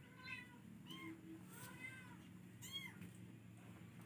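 A domestic cat meowing faintly, four short meows about a second apart.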